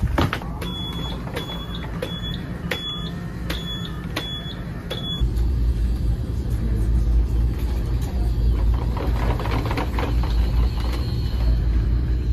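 Electric mobility scooter running, its motor giving a steady low hum that swells in about five seconds in. Before that comes a run of light, evenly spaced clicks with short high beeps, about one every 0.7 s.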